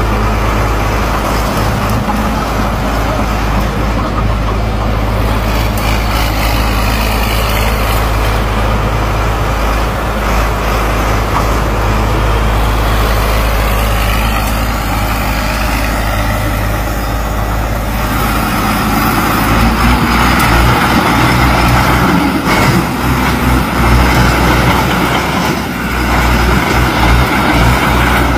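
Engine of a heavily customised crawler-tracked farm machine running steadily as it drives, with a deep steady hum. About twenty seconds in it gets louder and rougher.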